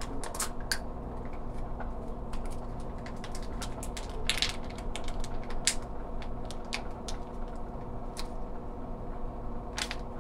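Plastic salad-kit packets crinkling and crackling as they are squeezed out and handled: irregular sharp crackles and clicks, with a denser burst about four seconds in. A steady low hum runs underneath.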